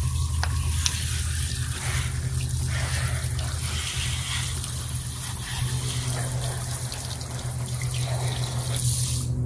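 Garden-hose spray nozzle rinsing dirt out of a robotic pool cleaner's plastic mesh filter basket: a steady hiss of spraying water over a low hum.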